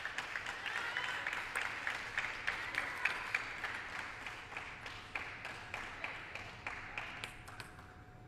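Spectators applauding after a won point in a table tennis match, a dense patter of claps that gradually dies away.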